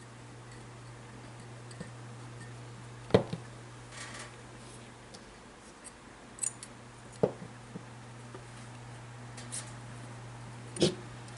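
Workbench handling sounds: a few separate sharp clicks and knocks of hand tools and parts being picked up and set down, the loudest three about four seconds apart, over a steady low hum.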